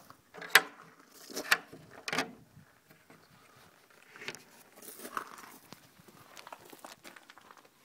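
A run of sharp clicks and knocks from a metal slide bolt being worked on a plywood shed door, three loud ones in the first two seconds and a few softer ones later.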